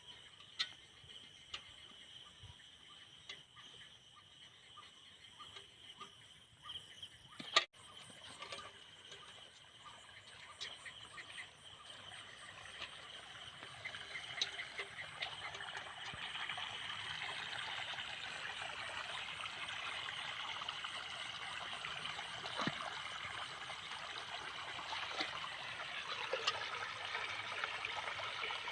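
Night wetland sound: a steady high insect drone, then water trickling and splashing that builds up from about twelve seconds in and stays steady to the end. A sharp click at about a third of the way through.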